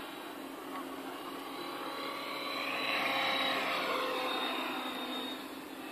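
Align T-Rex 550E electric RC helicopter flying past: the whine of its motor and rotor blades swells to its loudest about halfway through and then fades as it moves away.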